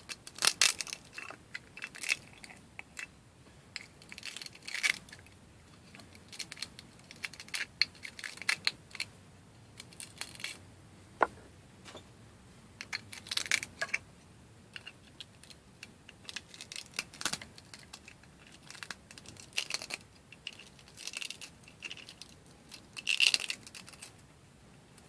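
PLA support material being broken up and picked off a 3D print: irregular small sharp plastic clicks and snaps, scattered unevenly with short pauses between.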